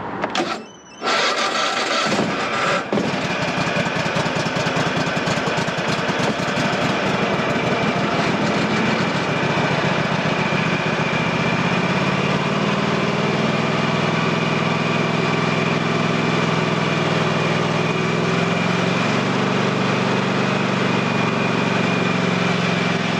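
Husqvarna TS348D lawn tractor engine cold-starting about a second in, then running steadily; about halfway the low engine tone grows stronger. The engine is still too cold to take load.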